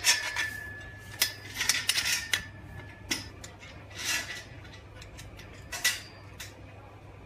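Black metal frame tubes of a swing chair clinking and knocking as they are handled and fitted together: a handful of sharp metallic clicks, the first followed by a thin ring lasting a few seconds.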